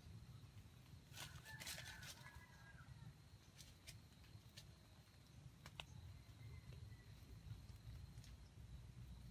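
Near silence in the forest: a faint steady low rumble and a faint high hum, with a short flurry of rustling clicks about a second in and a few faint ticks later.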